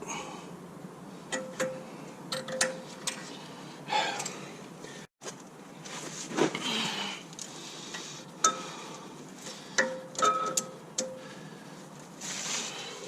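Metal tools clinking and scraping against the brake caliper while its pistons are pushed back. There is a string of separate knocks, several of which ring briefly, between short rasping scrapes.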